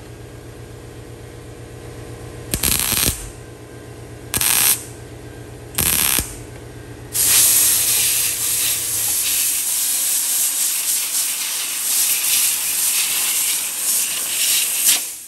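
Three short bursts of noise, then a compressed-air blow gun hissing steadily on a freshly welded sheet-metal seam, cooling the quarter panel so the heat does not warp it.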